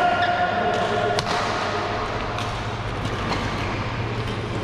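Badminton rackets striking shuttlecocks: a few sharp hits about a second apart, the one a little over a second in the loudest, over the steady low hum and general noise of a busy badminton hall.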